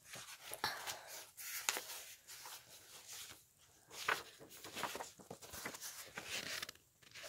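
Faint rustling and small clicks of paper pages as a book is handled, lifted and its pages turned.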